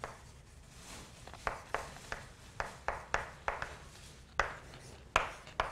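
Chalk writing on a blackboard: a run of sharp, irregularly spaced taps and short strokes as the letters are written.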